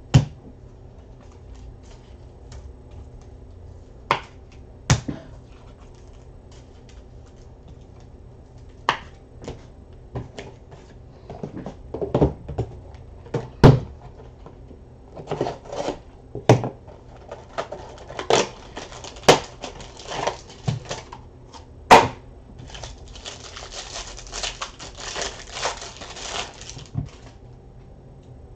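Trading card packs and cards handled on a tabletop: scattered sharp taps and clicks, coming thicker after about twelve seconds. Near the end there are a few seconds of dry rustling from the pack wrapper and the cards.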